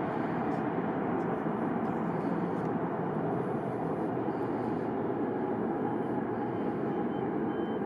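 Four-engine turboprop of an Airbus A400M, a steady drone with a faint constant tone running through it.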